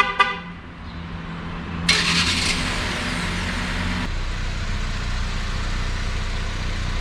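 A short car horn chirp at the very start. About two seconds in, the Fiat Toro's 1.3 turbo four-cylinder engine cranks and fires, then settles into a steady idle.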